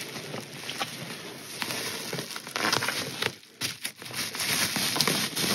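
Plastic bubble wrap crinkling and rustling as hands rummage through it among polystyrene packing peanuts, a dense crackle that drops briefly a little past halfway.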